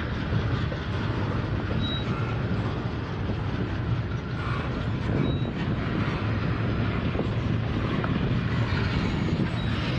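Double-stack intermodal container train of well cars rolling past: a steady, unbroken rumble of steel wheels on rail.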